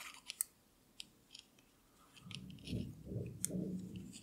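Metal knitting needles clicking and yarn rustling as stitches are worked in a knit-one, purl-one rib. A few faint sharp clicks come in the first half, and a soft rubbing rustle joins from about halfway.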